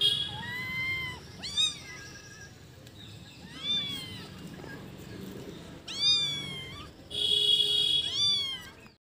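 Kittens meowing: a string of about eight short, high mews that rise and fall in pitch, coming at uneven intervals and stopping abruptly near the end.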